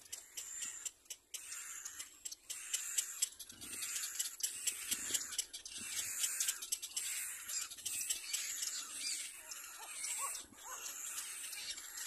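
Little black cormorant chick making a run of short, breathy, unpitched calls about once a second, over a patter of small clicks.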